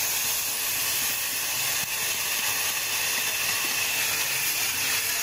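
Tamarind pulp hissing and sizzling steadily after being poured into a pan of hot oil and fried spices.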